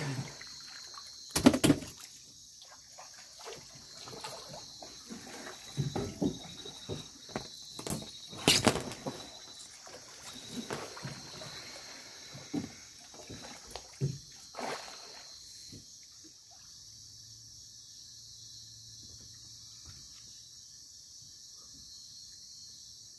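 Water sloshing and splashing as divers move through shallow water, with irregular splashes, the loudest about a second and a half in and about eight and a half seconds in. It settles to a quiet trickle over the last third.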